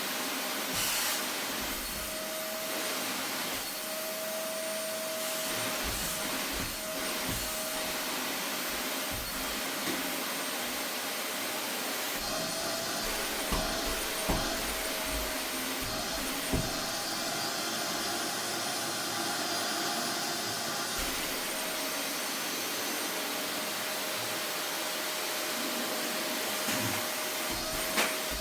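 Vacuum cleaner running steadily: rushing air with a steady motor whine. The sound shifts for several seconds midway as the airflow changes, and there are a few light knocks, the last near the end.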